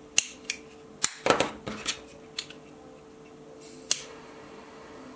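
A lighter being handled to burn the cord ends: a run of sharp plastic clicks and taps, busiest a little over a second in. About four seconds in comes a short hiss that ends in a sharp click.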